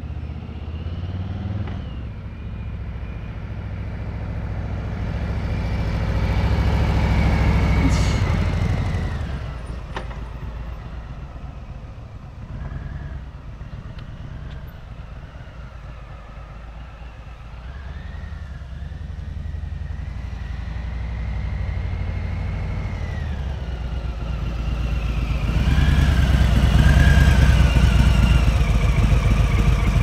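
Harley-Davidson V-twin motorcycle riding by at low speed, engine getting louder to a peak about eight seconds in, fading, then building again to its loudest near the end as the bike comes close.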